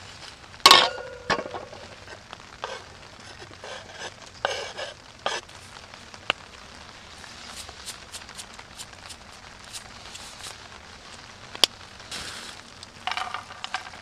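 Camp food prep with a plastic shaker bottle: a sharp clack with a short ringing after it, about a second in, as the bottle's lid is set down on a small wire grill rack. Then scattered light taps, clicks and rustles of handling food and a plastic bag.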